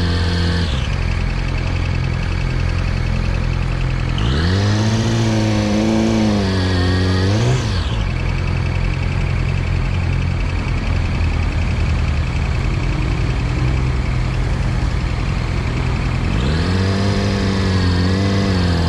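Yamaha YZF-R6 (2020) inline-four engine idling and being revved. It drops back to idle about a second in, revs up and holds for about three seconds in the middle, then revs up again near the end. The owner presents the engine's sound as abnormal.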